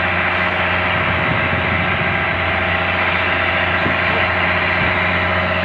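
A fishing boat's inboard engine running steadily, with an even drone under the hiss of wind and water.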